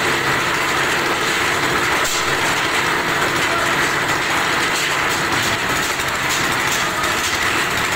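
A concrete mixer's stationary diesel engine running steadily, turning the mixer drum.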